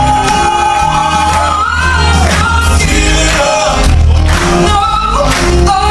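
Male Southern gospel quartet singing live over piano and a strong bass, with long held notes that glide between pitches.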